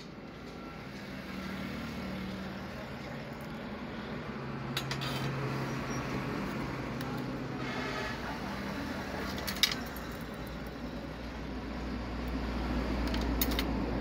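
A few light clicks and clinks of small tools and wire being handled on a workbench, the sharpest about ten seconds in. A steady low hum and rumble runs underneath.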